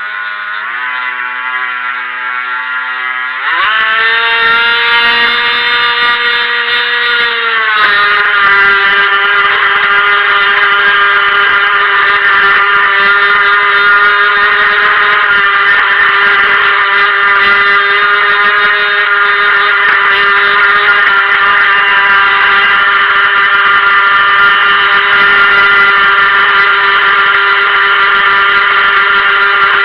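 Helion Rivos RC boat's brushed electric motor whining under throttle. It starts at a lower pitch, climbs sharply about three and a half seconds in, then settles a little lower into a steady, louder whine with added hiss from about eight seconds on.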